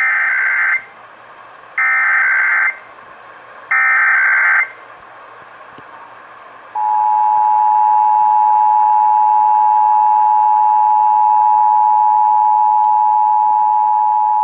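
Emergency Alert System SAME header: three short bursts of high-pitched warbling digital data, about two seconds apart. About seven seconds in, the EAS attention signal begins: a loud, steady two-tone alarm that opens a Required Monthly Test broadcast.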